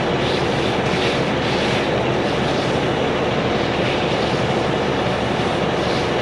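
Concrete pump truck's diesel engine running at a steady drone.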